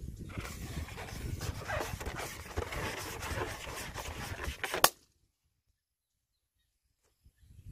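Breath blown in puffs into a latex balloon, with wind rumbling on the microphone. About five seconds in the balloon bursts with a single sharp pop, the loudest sound.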